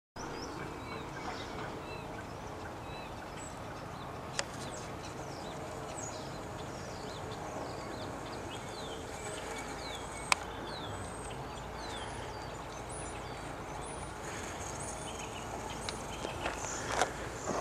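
Outdoor woodland ambience: birds chirping repeatedly over a steady background hiss, with two sharp clicks. Footsteps on the loose dirt trail begin near the end.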